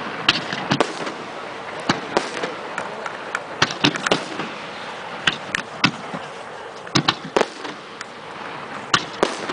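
Homemade fireworks shells bursting overhead: a string of irregular sharp bangs and pops, some in quick clusters about four seconds in and again about seven seconds in, over a steady background hiss.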